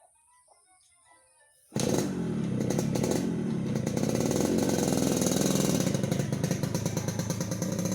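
Yamaha RX-King's two-stroke single-cylinder engine running loud with a rapid, raspy growl from its tuned ('ngorok') exhaust, coming in suddenly about two seconds in after near quiet with faint bird chirps.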